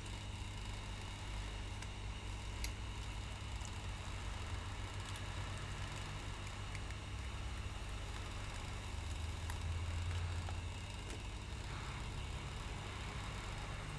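Hot-air rework station blowing, a steady airy hiss over a low hum, with a few faint ticks of metal tweezers against the panel's frame.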